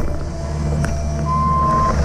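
Cat 306 excavator's diesel engine running steadily while it works, with an alarm beep sounding once from about a second in: one held tone, like a travel or back-up alarm.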